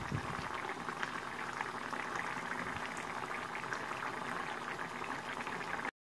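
Pan of small-fish curry simmering, with a steady crackle of small bubbles popping in the gravy; it cuts off suddenly near the end.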